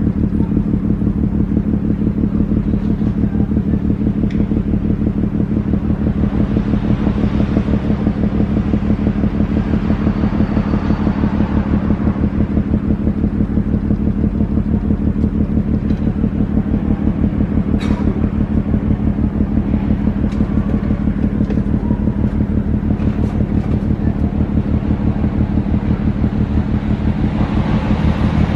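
Diesel engines of the container ship Maersk Tanjong running, a steady, deep, fast-pulsing throb with no change in speed. This is the engine noise from the ship that carries to the homes near the port.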